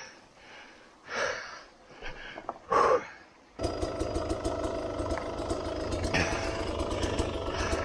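Sherco 250 SER two-stroke dirt bike engine. It is silent at first apart from a few short noisy sounds, then starts abruptly about three and a half seconds in and runs steadily.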